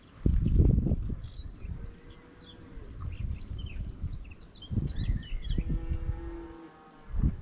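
Calves mooing, a short call about two seconds in and a longer, stronger one about six seconds in, over small birds chirping. A loud low rumble fills the first second.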